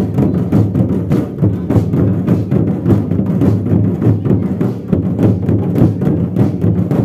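Folk dance music led by drums, beating a fast, even rhythm.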